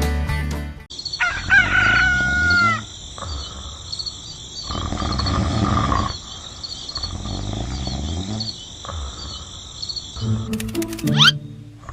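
A long pitched animal call, rising then held, starts about a second in over a steady high-pitched pulsing buzz. It is followed by repeated rough swells of noise and a quick rising whistle near the end.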